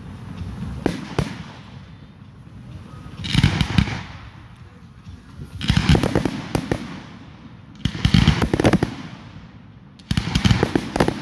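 Aerial firework shells bursting overhead in four volleys of sharp bangs and crackling, each lasting about a second, with quieter gaps between them.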